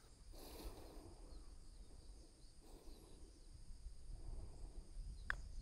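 Quiet outdoor background, then a single short sharp click near the end: a putter striking a golf ball on the green.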